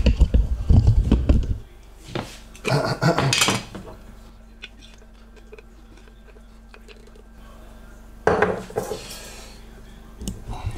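Kitchen handling noise: a glass jar and plastic spoon knocking and clinking against the counter and cooktop. It is loudest in the first second and a half, with more knocks from about two to three and a half seconds in and again near eight seconds, and a faint steady hum in the quieter stretches between.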